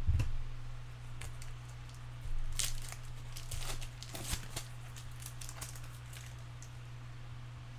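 Foil wrapper of a trading card pack crinkling and tearing as it is opened, with cards being handled. A steady low hum runs underneath.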